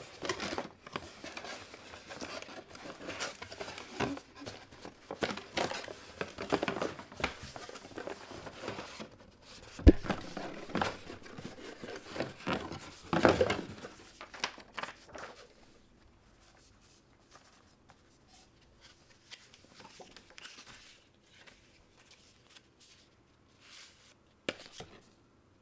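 Cardboard headset packaging being handled: box flaps and inserts opened, folded and shuffled, rustling and clattering, with one sharp knock about ten seconds in. The last ten seconds are much quieter, with only faint handling of paper cards.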